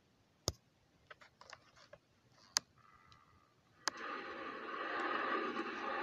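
Sharp taps and lighter ticks of fingers working a phone's touchscreen, three of them clear. About four seconds in, a steady rushing noise from the news clip playing on the phone comes in and holds.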